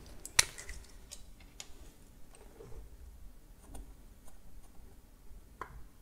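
Small handling clicks of a felt-tip marker and a tiny micro USB plug being marked: one sharper click shortly after the start, then faint scattered ticks.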